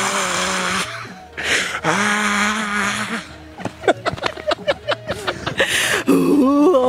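A man's voice doing a loud vocal sound imitation: two long, steady held cries, then laughter in quick short bursts. Another voice starts near the end.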